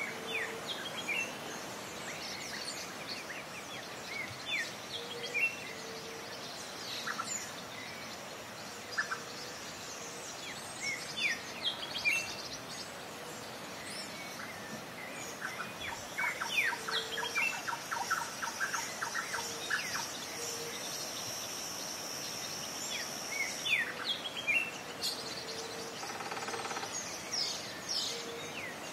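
Several birds chirping and calling in an open outdoor ambience, with short high whistles and chirps throughout, a quick run of repeated notes about halfway through, and low short calls recurring every few seconds. A steady high buzz runs for a few seconds past the middle.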